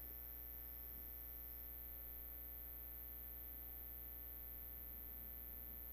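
Steady low electrical mains hum with a faint high-pitched whine above it.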